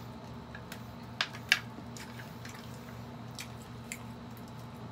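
People eating fried chicken with chopsticks: scattered small clicks and crunches, with two sharper clicks about a second and a half in, over a steady low hum.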